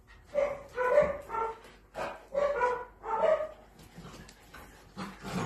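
Catalan sheepdog puppies yapping in play: two quick runs of short, high-pitched barks, each about a second and a half long, with a lull after the second.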